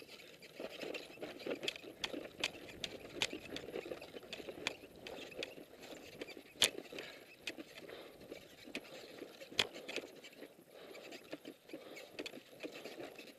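Footsteps on dry ploughed earth with equipment rattling, as a soldier moves on foot across the field. Several sharp snaps break through, the loudest about halfway through.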